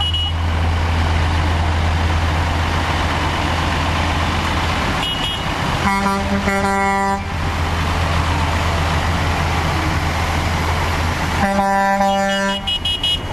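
Big-rig trucks rolling past with a steady low engine rumble. A truck air horn sounds twice, one blast about six seconds in and another near the end, each lasting a little over a second.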